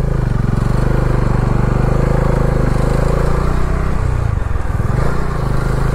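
Bajaj Dominar 400's single-cylinder engine pulling away from a stop and accelerating. Its pitch rises, then dips briefly about four seconds in before it carries on.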